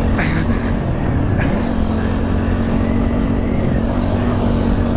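TVS Apache RTR 160 4V motorcycle's single-cylinder engine running at steady low revs while the bike is ridden slowly over a broken, rough road.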